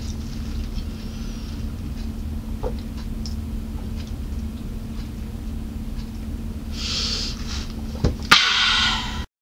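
Steady low room hum while a plastic water bottle is drunk from, with a few small clicks. Just after eight seconds there is a sharp knock as the bottle comes down toward the table, then a brief rush of noise, and the sound cuts off suddenly.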